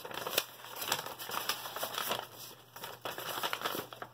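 Paper rustling and crinkling as a folded letter is handled and unfolded, in irregular crackles.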